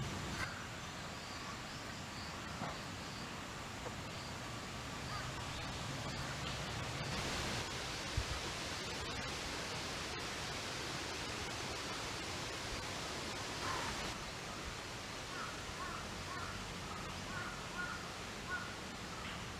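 Steady outdoor ambient hiss with birds calling now and then, including a run of short calls in the last few seconds, and a single brief knock about eight seconds in.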